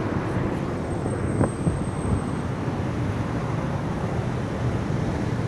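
Steady street traffic noise, a low rumble with no single vehicle standing out. A faint high-pitched whine sounds from about one second in to about two and a half seconds.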